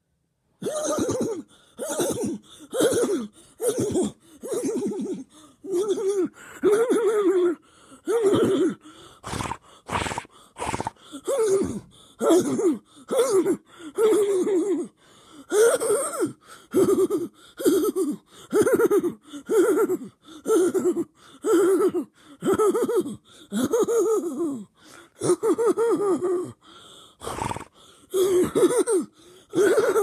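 A person's voice making the same short, wordless, strained noise over and over, about one a second, many of them falling in pitch. A deliberately annoying nonsense noise, starting about half a second in.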